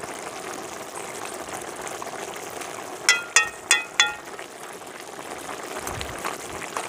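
Fish stewing in sauce in a pot, simmering with a steady hiss. About three seconds in come four quick ringing clinks, about a third of a second apart.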